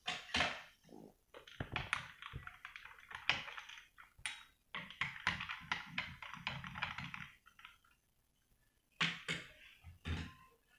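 A spoon stirring ice cubes in a glass of fizzy peach drink, with repeated clinks and clatter of ice and spoon against the glass; after a pause, two short bursts of clinks near the end.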